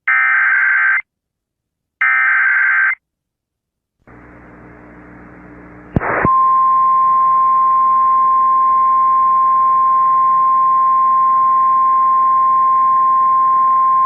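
Emergency Alert System header: two one-second bursts of SAME digital data tones a second apart, then radio static with a low hum from about four seconds in. At about six seconds a click brings in the steady single-pitch 1050 Hz NOAA Weather Radio warning alarm tone, marking a flash flood warning.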